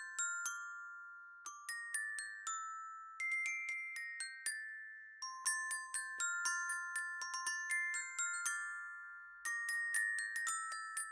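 Background music: a light tinkling melody of bell-like struck notes, glockenspiel style, each note ringing out and fading, in phrases with short gaps.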